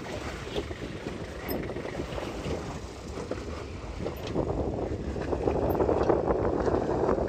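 Toyota Hilux Mk3 pickup's engine running low as it crawls down a rocky slope, mixed with wind buffeting the microphone; it grows louder in the second half.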